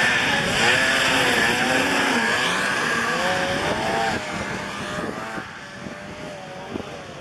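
Racing snowmobile engines revving, their pitch rising and falling with the throttle, with a hiss of tracks on snow. One machine passes close, and the sound fades away after about four seconds.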